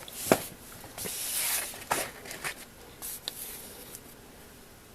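Old 78 rpm records being handled: light clicks and knocks, with a short rustle of paper about a second in.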